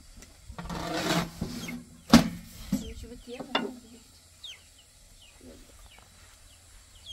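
Chickens clucking, with short high falling peeps scattered throughout and a sharp knock about two seconds in.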